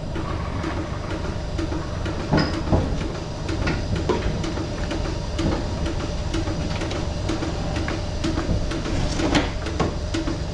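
Lely A5 milking robot at work attaching teat cups: a steady machine hum with a regular pulsing about twice a second, and scattered clicks and knocks as the arm moves under the cow.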